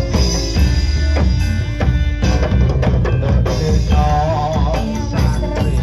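Live Javanese dawangan ensemble playing: steady drumming with ringing metallophone tones above it. A wavering melody line comes in about four seconds in.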